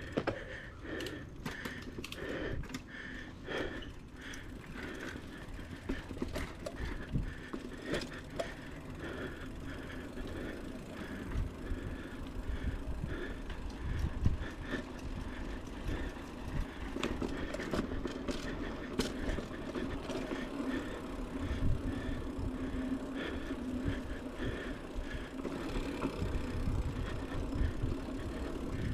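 Mountain bike rolling along a dirt trail: a steady rumble of tyres on dirt, with frequent rattling knocks from the bike over bumps.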